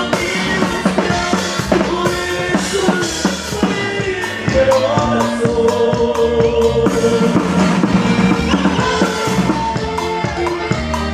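Live Mexican grupera band playing an instrumental passage: a drum kit with snare and bass drum keeps a steady beat under bass and a melodic lead line of held and sliding notes.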